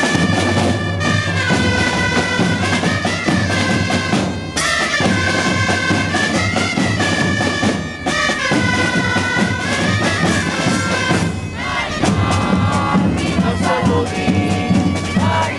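Festival music: a reedy wind-instrument melody over the steady beat of a drum band.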